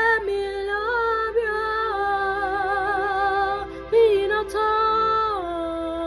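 A woman singing solo gospel, holding long notes with a wavering vibrato. There is a brief break for breath about four seconds in, then another held note that falls in pitch near the end.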